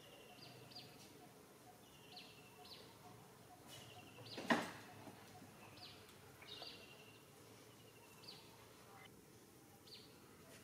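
Bird calling again and again over faint background hiss, each call a quick high note followed by a short buzzy trill. A single sharp knock about four and a half seconds in is the loudest sound.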